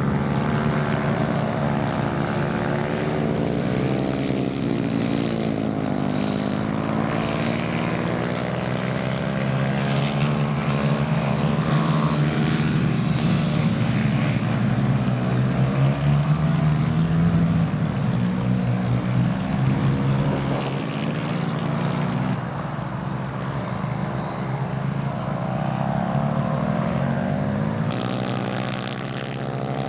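Several small racing kart engines running together, their pitches rising and falling as the karts speed up and slow down through the corners.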